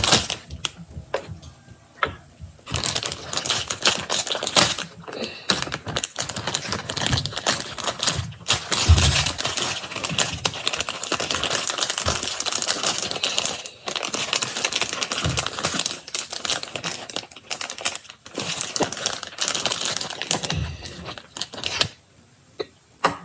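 Slime being pulled and squeezed by hand out of its container, giving dense, irregular clicking, with short pauses near the start and the end.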